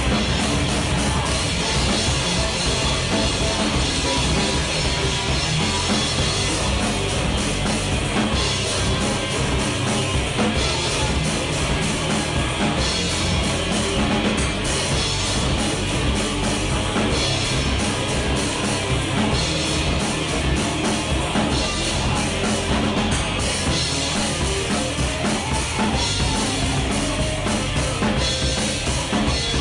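Rock band playing live: electric guitar, electric bass and a drum kit with crashing cymbals.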